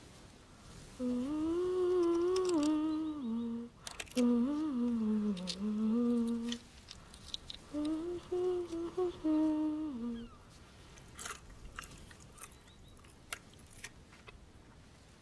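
A voice humming a slow, wordless tune in three phrases, with a few light clicks and taps, some of them after the humming stops.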